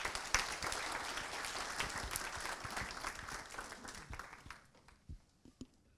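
Audience applauding, fading away after about four seconds, with a few last scattered claps near the end.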